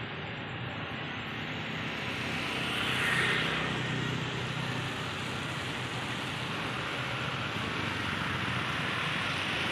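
Steady street traffic noise, with a vehicle passing and the noise swelling about three seconds in.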